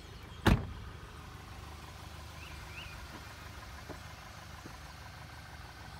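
A car door shut with one solid thump about half a second in, then the 2013 Volkswagen Eos's 2.0-litre turbo four-cylinder idling steadily.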